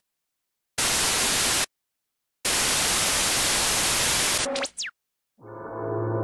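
Bursts of TV-style static hiss from a glitch-transition sound effect, switching on and off abruptly: about a second of static, a pause, then about two seconds more. Quick falling electronic zaps follow, then after a brief gap a deep, gong-like droning tone swells in near the end.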